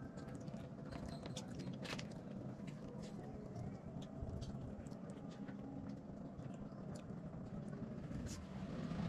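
A person chewing food quietly, with scattered small clicks and crinkles, over a low steady background hum.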